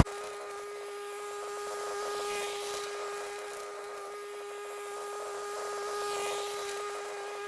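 A steady mechanical hum with a clear pitched whine, swelling gently twice.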